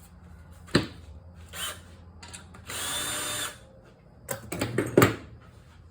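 A power drill runs in one short burst of under a second, between sharp knocks and a quick cluster of clicks and clanks from tools and metal parts being handled, the loudest knock near the end.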